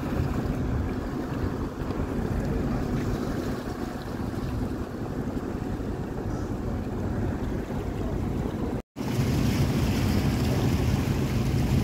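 Expedition cruise ship's engines and propellers running close by: a steady low rumble with a hum, over churning water and wind on the microphone. The sound cuts out for an instant about nine seconds in and comes back louder.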